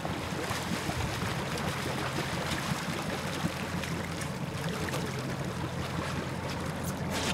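Steady hum of a fishing boat's engine running under way, with water washing and sloshing along the hull.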